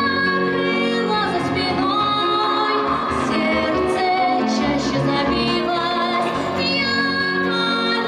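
A girl singing a song with vibrato into a microphone over an instrumental backing with a steady bass line.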